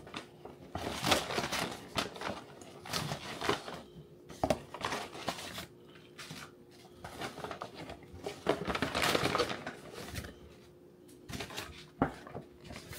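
Paper takeout bag rustling and crinkling in irregular bursts as food containers are pulled out of it, with a sharp knock of a container set down on the counter near the end.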